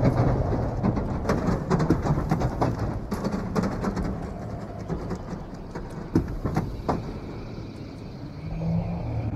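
Low rumble of a vehicle-laden soundscape with many scattered clicks and knocks, thinning out in the later part.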